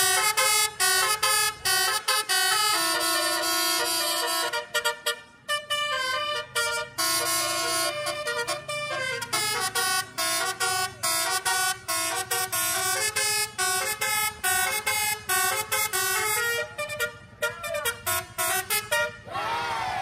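Telolet musical air horn playing a quick tune of many short stepped notes, with a few longer held notes. The tune stops about a second before the end.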